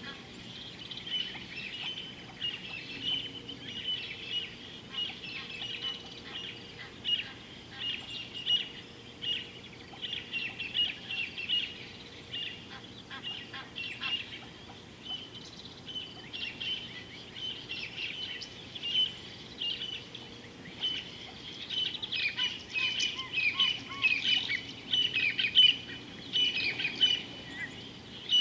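Wild birds chirping and calling in many quick short notes, growing busier and louder near the end.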